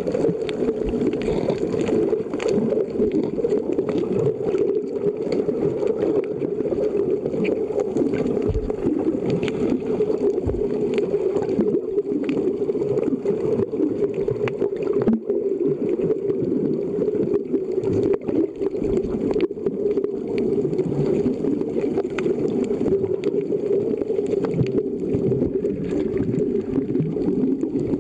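Muffled underwater sound picked up by a camera below the surface: a steady low rumble with faint clicks and crackles scattered through it.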